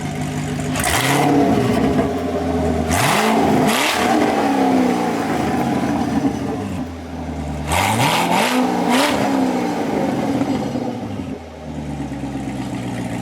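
Corvette engine running on open headers with no exhaust fitted past them, revved in quick throttle blips: a cluster between about one and four seconds in and another around eight to nine seconds. It drops back to a steady idle near the end. Loud.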